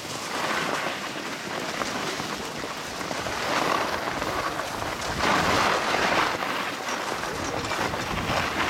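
Skis sliding and scraping over packed snow in a continuous rushing hiss, swelling to its loudest about five seconds in.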